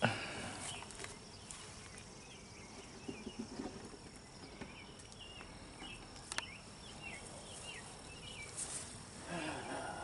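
Faint buzzing of agitated honey bees flying around an opened hive, stirred up by a clumsy inspection. A few sharp knocks of the wooden hive parts, the clearest about six seconds in as the hive cover is set back in place.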